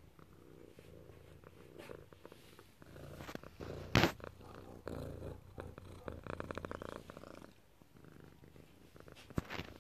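Domestic cat purring close to the microphone, a steady rough pulsing hum. About four seconds in, a sharp loud bump.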